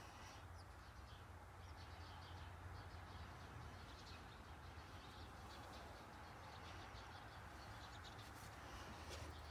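Near silence: faint background with a steady low hum and scattered faint high ticks.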